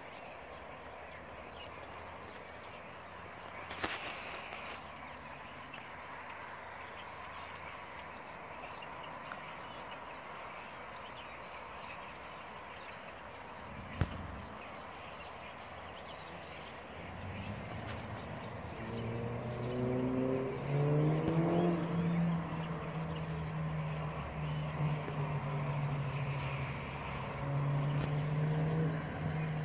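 Open-air ambience with faint bird chirps and two brief knocks. From about halfway, a motor vehicle's engine comes in and grows louder. Its pitch rises in steps as it accelerates, then it runs on steadily, rising once more near the end.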